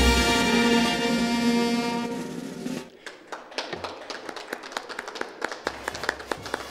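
The closing chord of a promotional spot's music, held and fading out over about three seconds. After that come scattered light clicks and taps.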